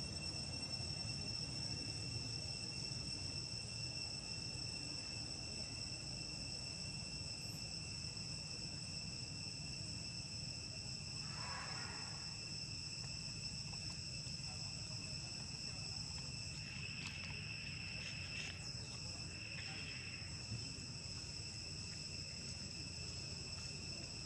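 Steady chorus of insects: several shrill tones holding an even pitch without a break, over a low, steady rumble. A short, faint call sounds about halfway through.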